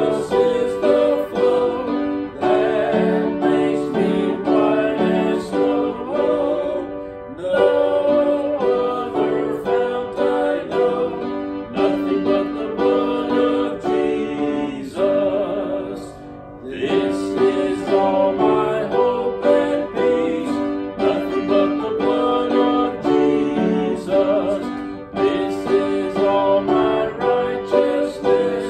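Music with sustained pitched notes over an accompaniment, broken by short pauses between phrases about seven and sixteen seconds in.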